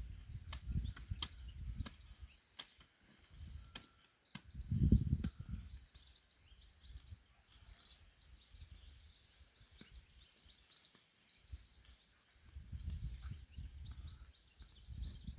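Digging in soil while harvesting potatoes: scattered clicks and thuds, the loudest cluster about five seconds in, with birds chirping faintly.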